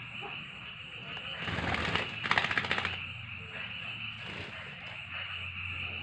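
A wet bird shakes and flutters its feathers after bathing: a short burst of rapid rattling flutter about two seconds in, lasting about a second, over a steady high-pitched drone.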